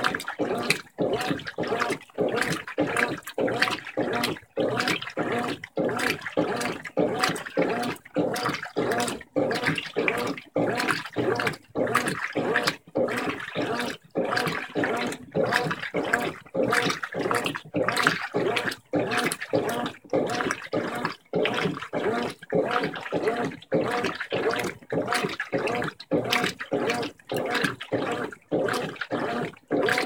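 Brastemp 15 kg top-load washing machine agitating a queen-size bedspread in water: rhythmic sloshing and churning in quick, short, regular strokes, each broken by a brief pause.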